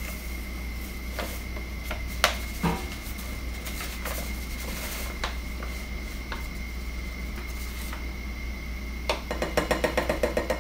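Dry scone mix pouring from a paper package into a glass mixing bowl, with scattered light taps and knocks of the package against the bowl. Near the end comes a quick run of tapping as the package is shaken out.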